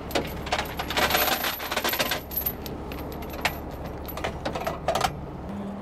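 Steel tow chains clinking and jangling as they are handled and pulled from a truck's side compartment: a dense rattle of links for the first couple of seconds, then a few separate sharp clanks. A truck engine idles underneath.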